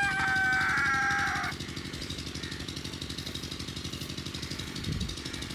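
A rooster crowing, the end of its call held for about a second and a half before stopping. Under it runs a steady low rhythmic drone throughout.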